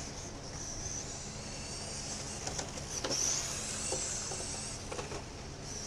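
Radio-controlled late model car's motor whining high as it laps a dirt oval, swelling as it passes near and fading as it goes round the far end.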